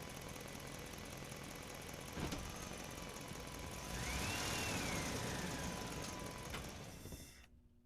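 Steady, engine-like vehicle sound effect running, with a sharp click about two seconds in and a whistle that rises then falls around the middle; it cuts off suddenly near the end.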